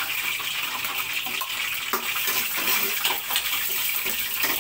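Garlic and strips of fresh turmeric sautéing in hot oil in a wok, a steady sizzle, with a metal ladle scraping and clinking lightly as it stirs them.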